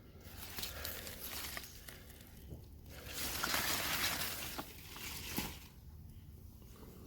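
Beet leaves and soil rustling as beets are pulled by hand from a planting tub, in two spells of noise, the second longer.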